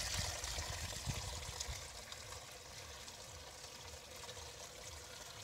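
Muddy water pouring through a gap in a mud dam into a woven bamboo fish trap, the current carrying small fish into the basket. It is louder for the first second or two, then settles to a quieter, steady trickle.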